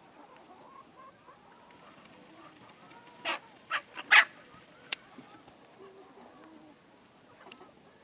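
Hens clucking softly, broken about three seconds in by four loud, short squawks in quick succession, the last the loudest. A single sharp click follows.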